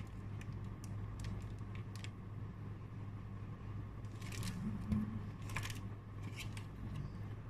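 Match Attax trading cards being handled by hand: a few short, crisp rustles and flicks of card, the clearest around the middle, over a steady low hum in the room.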